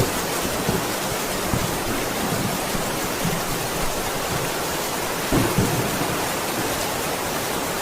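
Steady heavy rain falling. A few short low thumps come through it, the strongest about five seconds in.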